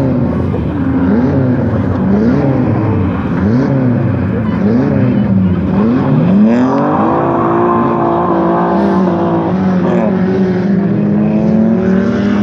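Rally car engine driven hard, its revs climbing and dropping again and again about once a second. About six seconds in the revs make one long climb, hold high for a few seconds, then fall away.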